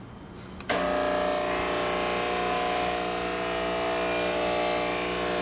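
The water-fill pump of a Techno-Gaz Andromeda tabletop autoclave clicks on about half a second in, then runs with a steady buzz as it fills the empty water tank.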